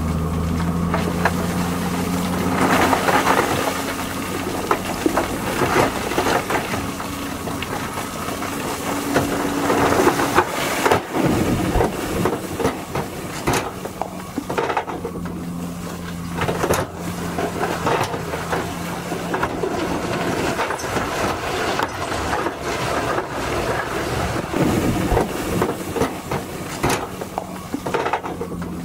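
18-ton dump truck's diesel engine running as its hydraulic hoist tips the bed, with crushed stone rattling and sliding out of the body in irregular rushes.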